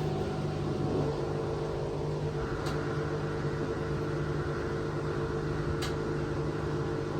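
LG top-load washing machine starting its cycle after a repair to its door-lock sensor: a steady mechanical hum, with a fuller layer of sound joining about two and a half seconds in and two faint clicks. It runs on instead of stopping with the dE door error.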